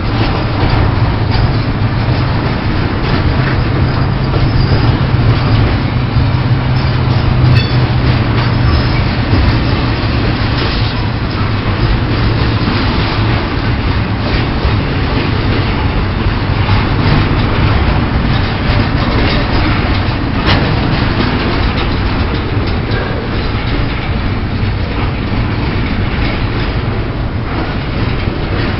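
Pan Am Railways freight train rolling past close by: a steady, loud rumble of cars on the rails with scattered faint clicks, the deep low rumble easing off about halfway through.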